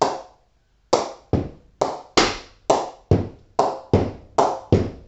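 A ball bounced over and over on the face of an SG Sunny Tonny Xtreme English willow cricket bat. Each hit is a sharp knock with a brief ring: one hit, a pause of just under a second, then a steady run of about two a second. This is a ping test of the 17-grain, machine-knocked bat's rebound off the middle.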